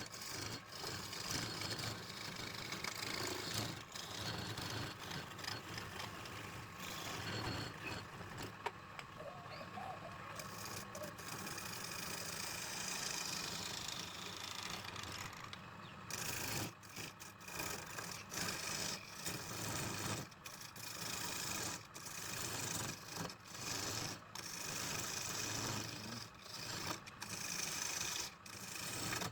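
Wood lathe running with a tool cutting into the spinning wood. The cut is steady for about the first half, then turns into short repeated scraping passes with brief gaps.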